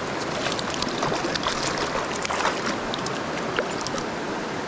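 Creek water rushing over a shallow riffle, with a run of small, sharp splashes as a hooked brook trout thrashes at the surface and is taken by hand.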